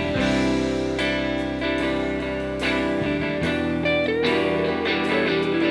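Live rock band playing an instrumental passage between sung verses: electric guitar over bass and drums, with a note bent about four seconds in.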